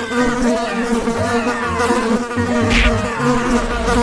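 Cartoon sound effect of a swarm of bees buzzing: a steady, even buzz with several wavering overtones.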